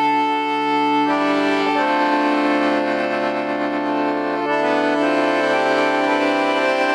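Solo accordion playing long held chords over sustained bass notes, the harmony changing a few times.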